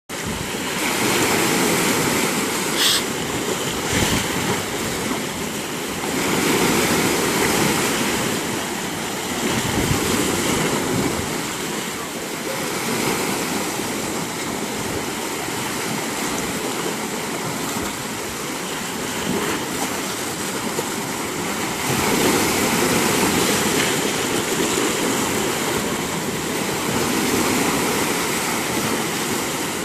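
Sea waves breaking and washing ashore: a continuous rushing surf that swells and eases every few seconds.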